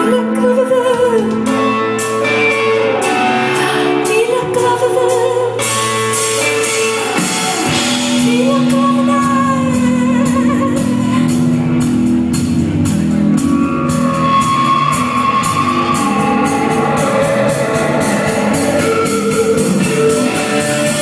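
Live band music with a sung, wavering vocal line over sustained guitar and keyboard tones, with no clear words.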